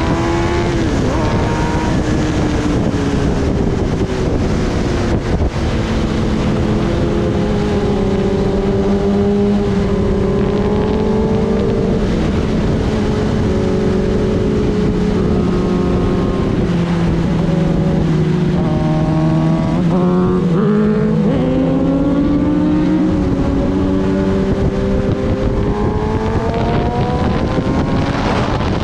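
Kawasaki Ninja ZX-10R's inline-four engine running under way, its pitch rising and falling with the throttle and a quick rev about twenty seconds in, with wind rushing over the microphone.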